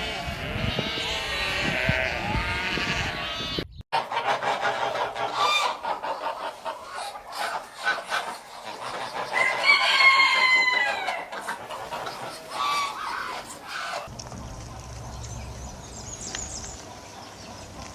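Chickens clucking with a rooster crowing loudly once, about ten seconds in. It is preceded by a few seconds of sheep bleating and, after a cut, followed by a few quieter seconds of faint outdoor background.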